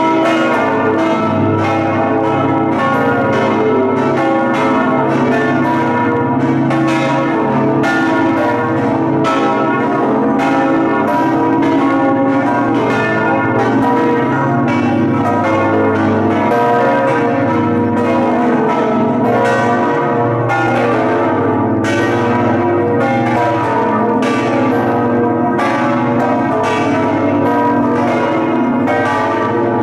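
The five bronze bells of St Mark's Campanile ringing together in full swing, Venetian 'a slancio' style, with the clappers flying and striking the upper lip of each bell. Heard up close inside the bell chamber, strokes fall irregularly, several a second, over a steady, loud wash of overlapping ringing.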